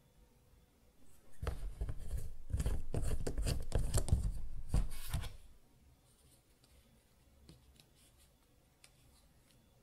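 Plastic nozzle cap screwed onto a soft plastic squeeze bottle: a dense run of rasping clicks and rubbing from the threads, starting about a second and a half in and lasting about four seconds, followed by a few faint taps from handling the bottle.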